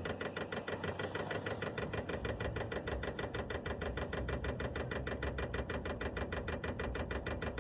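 Vevor diesel air heater's fuel dosing pump ticking rapidly and evenly while priming, drawing diesel from the tank to the combustion chamber. A steady low hum runs underneath.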